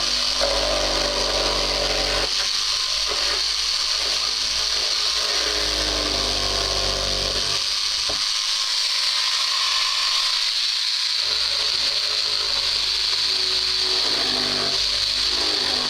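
Power drill running steadily with a high whine while boring into a door to fit a new lock. Its lower hum shifts in pitch and drops away for a few seconds about halfway through, then returns.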